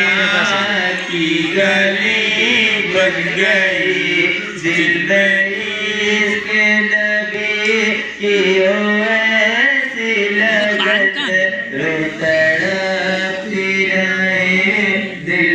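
Men chanting a naat, a devotional poem in praise of the Prophet Muhammad, in a continuous melodic recitation.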